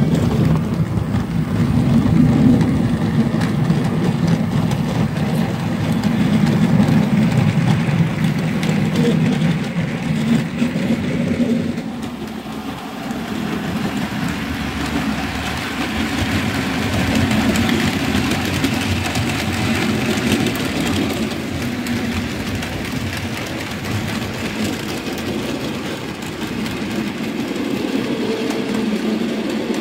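Model railway diesel locomotive running along the track, its engine sound and the rumble of its wheels heard together. The deep rumble eases about twelve seconds in, and a lighter running sound follows.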